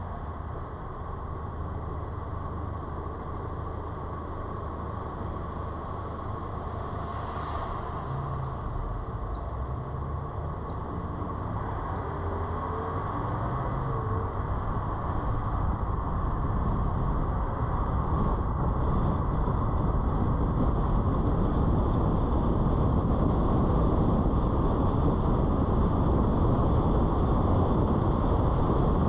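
A car driving along a paved street: steady road, tyre and wind noise that grows louder through the second half as it picks up speed. An engine note briefly rises and falls around the middle.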